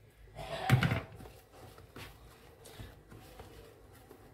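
A short pour of water from a ladle onto couscous semolina in a plastic bowl, about a second in. Then faint scraping as a wooden spoon and hand work the water into the damp grains so they can absorb it.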